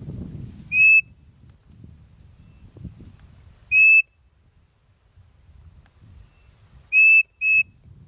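Hand-blown codorniz (spotted nothura) bird call whistling four short, loud notes: one about a second in, another near four seconds, then a quick pair near the end.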